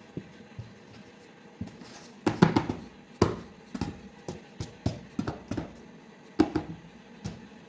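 A string of irregular knocks and taps with short ringing, the loudest a quick cluster about a third of the way in and one more near the end.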